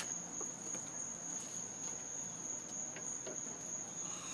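Crickets trilling steadily on one continuous high note, with a few faint ticks.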